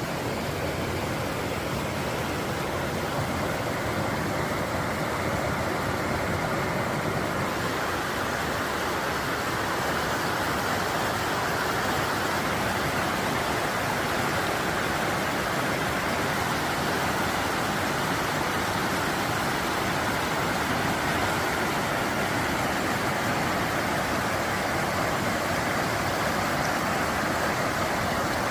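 Mountain stream water rushing steadily over rocks, a constant even roar of flowing water that grows a little brighter about seven seconds in.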